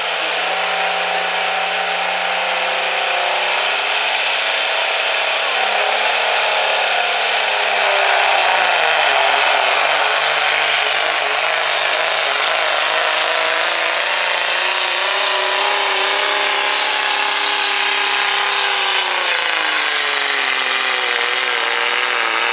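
Dodge Ram pickup's Cummins common-rail turbo diesel at full throttle, hauling a weight-transfer pulling sled and blowing black smoke. The engine note sags as the sled loads it down about a third of the way in, picks up again, then sags again near the end as the truck bogs down.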